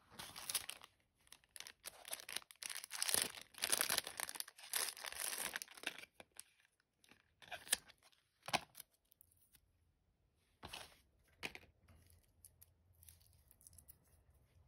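Plastic retail packaging of a watch strap crinkling and rustling as it is handled. The dense crinkling lasts about six seconds and is followed by a few separate crackles.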